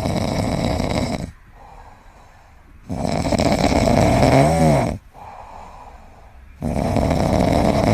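Loud snoring: three long snores about three and a half seconds apart, with softer breaths between them. The middle snore ends in a whistling whine that rises and falls in pitch.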